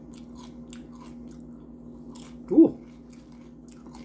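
A person chewing crunchy spicy Doritos tortilla chips loaded with taco toppings: many small crisp crunches and wet chewing sounds. About two and a half seconds in there is one short, loud vocal sound from the eater.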